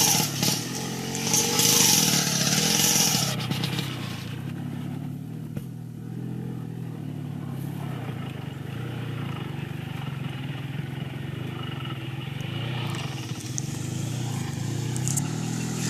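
Small motorcycle engine running steadily at low revs while carrying a load of logs on a rough dirt track. A loud rushing hiss joins it for a few seconds about a second in.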